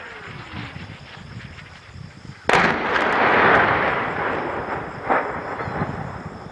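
Artillery shelling: a falling whistle fades out in the first second. About two and a half seconds in there is a sudden loud blast that rumbles and echoes for a couple of seconds, and a second, smaller bang follows about five seconds in.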